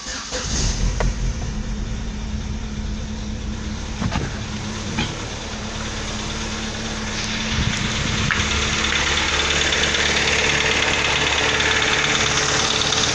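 Chevrolet Astra 2.0 8-valve four-cylinder engine just started from cold and idling steadily with a tapping from the valvetrain, which the owner takes for hydraulic lifters (tuchos) not yet pumped up with oil. The noise comes only on the first start of the day.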